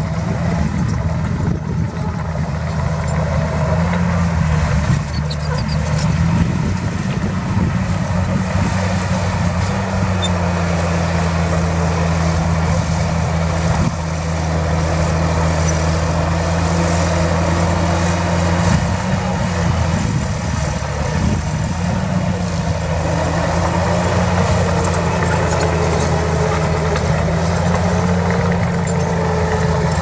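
Heavy diesel engine of earthmoving machinery running steadily, its pitch lifting briefly a few times.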